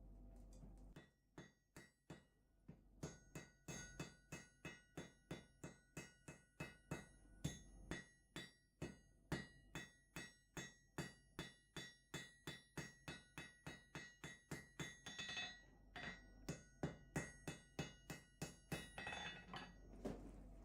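Hand hammer striking hot steel on an anvil while forging a chisel blank: steady, rhythmic blows at about three a second, each with a metallic ring from the anvil. The blows start about a second in.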